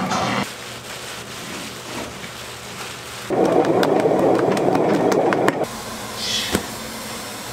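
Background music cuts off about half a second in, giving way to clatter. A loud, dense rumbling noise from shop equipment runs for about two seconds in the middle, followed by a few sharp clicks.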